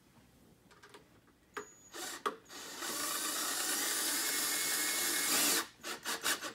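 Cordless drill driving a face-mask screw into a football helmet, tightening the last screw. A short spin comes about two seconds in, then a steady run of about three seconds that stops suddenly, followed by a few clicks.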